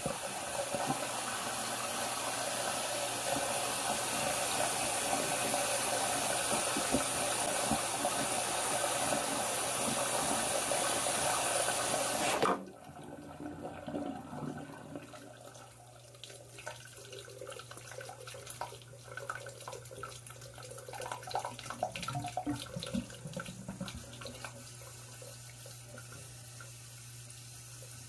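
Water running through a freshly snaked AC condensate drain line to flush it and test that it drains without backing up. The steady flow cuts off suddenly about halfway through, leaving fainter, irregular trickling as the line drains.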